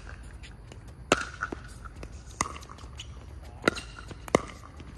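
Pickleball paddles striking a plastic pickleball in a rally: four sharp pocks, each with a brief ringing, about a second and a quarter apart, the last two closer together. Fainter ticks fall between them.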